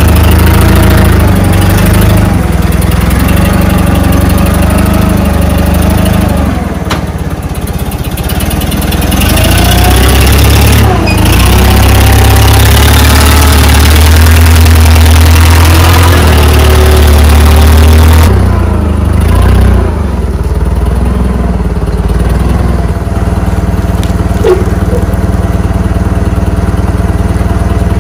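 Propane-fuelled Clark forklift engine running close by, its pitch rising and falling as it drives carrying a bulk bag of sand. About two-thirds of the way through it settles to a lower, quieter run.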